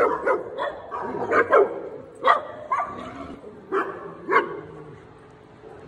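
Small dogs barking and yipping: a string of short, sharp barks over the first four and a half seconds, then quieter near the end.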